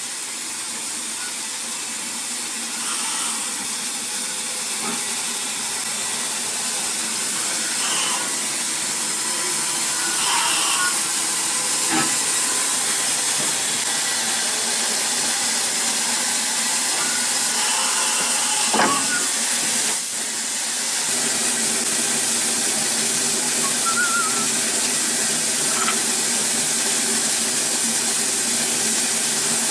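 Steady steam hiss from a Hunslet Austerity 0-6-0 saddle tank locomotive standing in steam, with a few short knocks, the loudest about two-thirds of the way through.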